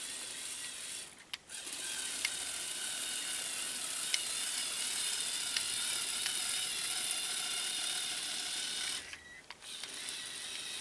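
Lego Technic Extreme Adventure, powered by a Power Functions XL motor, driving on its tracks: a steady whir of the electric motor and the plastic gears, differentials and drive shafts, with a few small clicks. It stops briefly about a second in and again around nine seconds, then runs on.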